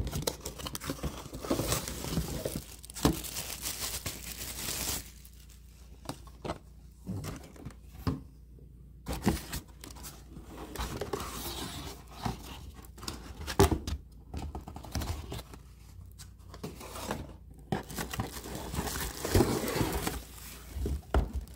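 Cardboard packaging being handled and pulled apart: an irregular run of rustling, scraping and crinkling, with scattered knocks.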